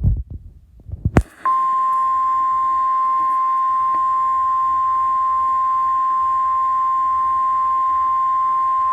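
Emergency Alert System attention tone, a single steady high-pitched beep starting about a second and a half in and held without a break, signalling an incoming severe thunderstorm warning. A few low thumps and a click come just before it.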